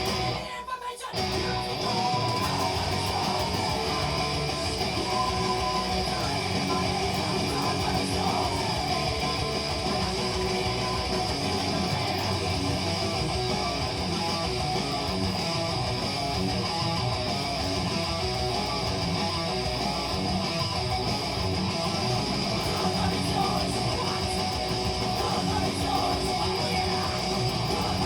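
Electric guitar, an Epiphone SG Special played through a Line 6 Spider V amp, playing metal riffs with a short break about a second in.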